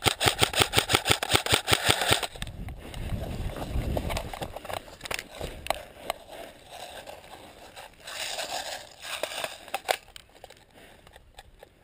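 Airsoft electric gun firing a rapid full-auto burst of about two seconds, followed by scattered single clicks and rustling.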